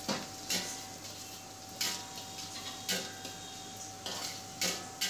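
Metal spatula knocking and scraping against a steel wok while shredded cabbage, capsicum and carrot are stir-fried: about six irregular clinks.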